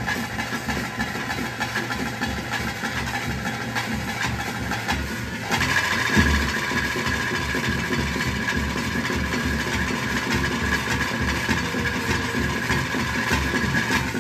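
Traditional daiva kola ritual music: drums beating a fast, steady rhythm with a held higher tone over them, which gets louder about five and a half seconds in.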